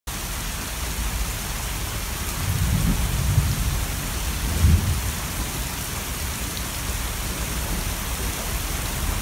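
Heavy rain falling on a lake in a thunderstorm, a steady hiss throughout, with low rumbles of thunder about two and a half seconds in and again near five seconds.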